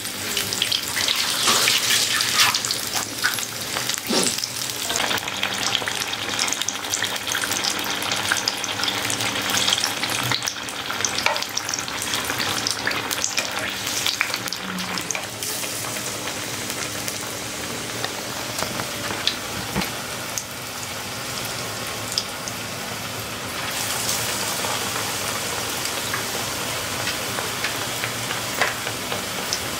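Battered raw-banana and chilli bajji deep-frying in hot oil in a kadai: a steady, dense sizzle and crackle of the oil bubbling around the fritters.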